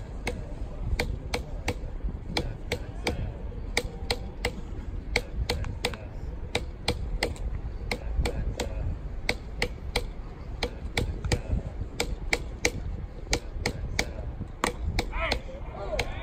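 Sharp, irregular claps, about two or three a second, over a low rumble of ballpark noise: spectators clapping in the stands. A brief wavering voice-like sound comes near the end.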